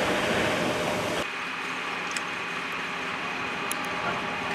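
Refuse truck's diesel engine running at idle, a steady mechanical hum that drops in level about a second in.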